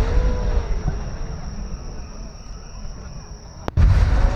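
Large aerial firework shells bursting: the deep rumble of one burst fades through the first second, and a second sharp boom hits near the end with heavy low rumble after it. A spectator's voice rises briefly near the start.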